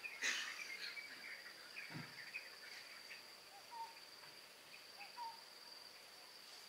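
Quiet hall ambience: a faint steady high-pitched tone with scattered faint chirps, a brief rustle just after the start and a soft thump about two seconds in.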